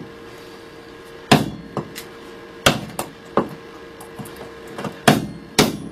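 Steel chisel being struck into a wooden block, cutting a notch: a handful of sharp knocks about a second apart, with lighter taps between.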